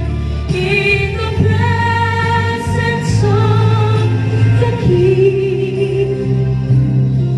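A boy singing a slow gospel ballad into a handheld microphone, holding long notes with vibrato, over a backing track of sustained low notes.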